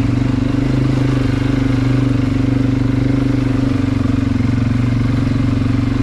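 ATV (quad bike) engine running at a steady, unchanging pitch close to the microphone.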